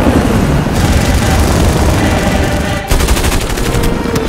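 Rapid machine-gun fire amid a dense wash of battle noise in a film battle soundtrack, with a fresh fast burst of shots starting about three seconds in after a brief dip.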